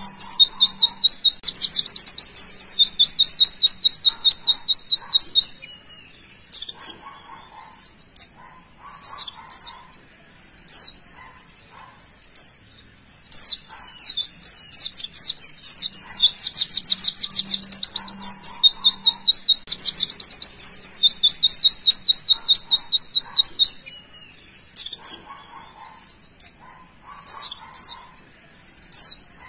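White-eye (pleci) singing: long runs of a very fast, high trill (the 'tembakan' that birdkeepers prize), one ending about five seconds in and another from about halfway to near the end. Between them come scattered quick chirps and sweeping whistles.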